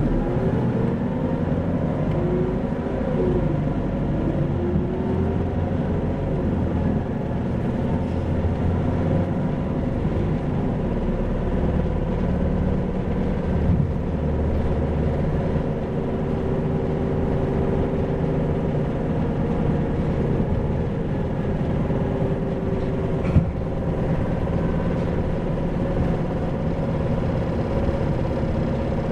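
Isuzu 2PG-LV290N3 (Erga) city bus on the move, heard from on board: its diesel engine and drivetrain hum steadily, with the pitch sliding up and down as the bus speeds up and slows. A faint steady whine sits over it, and there is a single short knock about 23 seconds in.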